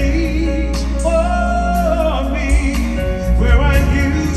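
Live R&B ballad from a band with piano, drums, bass and keyboards. A male singer holds a long wavering note that slides down about two seconds in, then rises into another phrase near the end, heard through the hall's PA.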